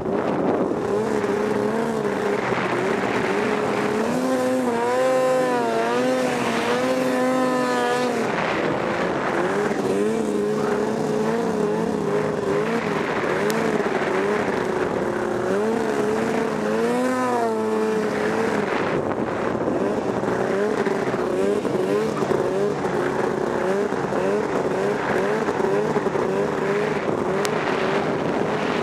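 Ski-Doo snowmobile engine running under load through deep powder, its pitch wavering with the throttle. It revs higher twice, for a few seconds about four seconds in and briefly around seventeen seconds in.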